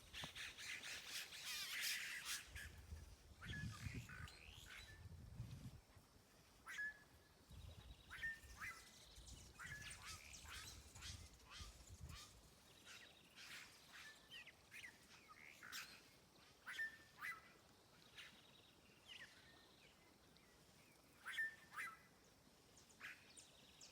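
Faint bird calls: many short calls repeated at irregular intervals, with a dense burst of chirping near the start. A low rumble runs underneath for several seconds in the first half.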